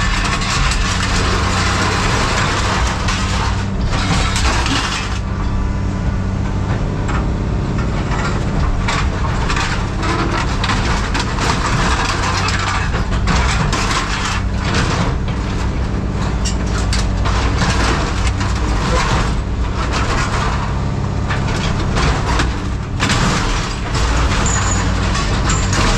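Tracked scrap-handling machine's diesel engine running steadily while its grapple tears apart scrap metal, with repeated clanks, cracks and crunches of metal.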